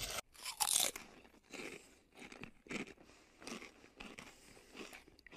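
A crunchy bite into a KFC chicken sandwich about half a second in. Then chewing, with short soft crunches about once or twice a second.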